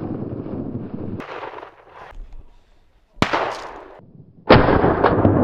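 Shotgun fired at a flushed pheasant: one sharp shot a bit past three seconds in with a short ringing tail. About a second later a second loud sudden sound starts and runs on as steady rushing noise.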